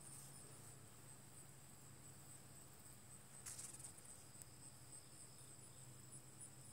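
Near silence with faint, steady, high-pitched insect trilling, and a brief soft rustle about three and a half seconds in.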